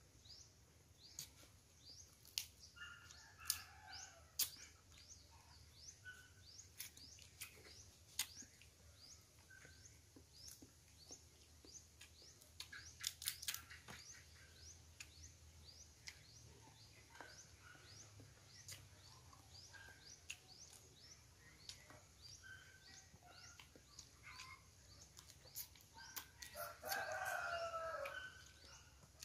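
Scattered light clicks and cracks of cooked crab shells being picked apart by hand, with faint bird chirps. A rooster crows once near the end, the loudest sound here.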